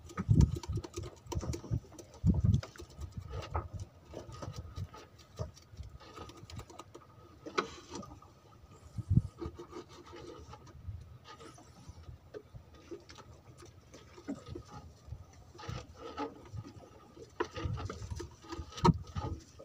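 Irregular small knocks and rubbing against the wooden gunwale of a fishing boat, from hands working a small tool on the rail, with quiet gaps between.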